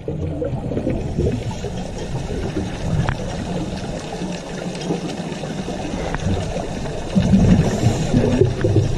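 Underwater ambient noise picked up by a diving camera: a steady low rumble of moving water, which gets louder about seven seconds in.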